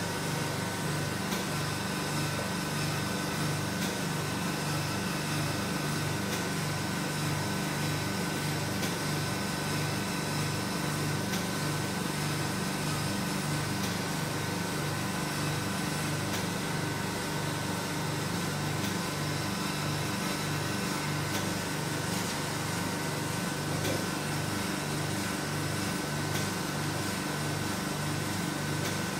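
Vacuum RF roller body-contouring machine running during treatment: a steady motor hum with a fast, regular pulsing, and a thin steady whine over it.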